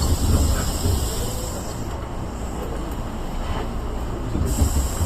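Tobu 8000 series electric train running on the line, a steady low rumble of the car and wheels on the rails, with a high hiss that fades about two seconds in.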